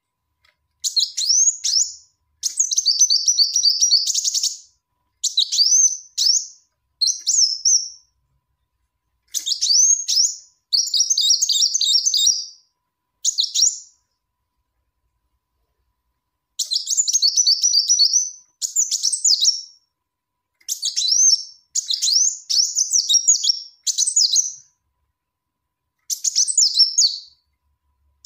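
Female kolibri wulung (a small sunbird) giving its high, clear lure call: bursts of quick rising chirps and fast buzzy trills, one to two seconds each with short pauses, and a longer pause about halfway through. This is the call a female gives to draw in a male.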